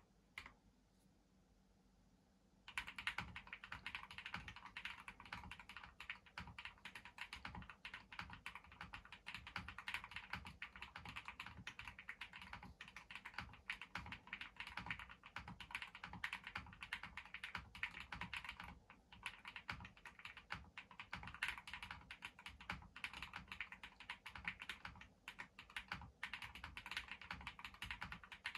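Fast typing on an Owlab Jelly Epoch gasket-mounted custom mechanical keyboard with lubed Durock POM linear switches, a polycarbonate plate and case foam: a dense stream of keystrokes. After a few strokes and a short pause, steady typing starts about two and a half seconds in, with brief lulls later on.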